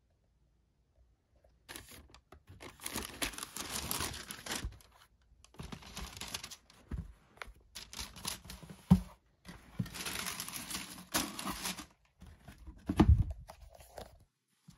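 Tissue paper rustling and crinkling in stretches as the sneakers are lifted out of their box and handled, with a couple of dull thumps, the louder one near the end.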